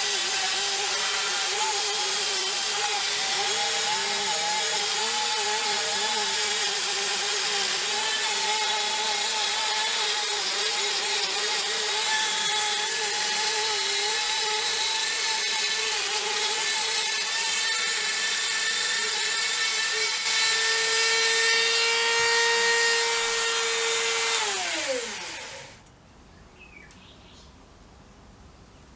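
Small electric power tool running steadily at high speed, a whining motor over a gritty hiss of work on the part. About 25 seconds in it is switched off and spins down with a quickly falling pitch.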